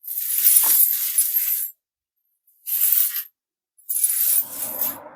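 Steel snow chain links jingling and clinking as the chain is handled and pulled behind a car tyre, in three separate bursts.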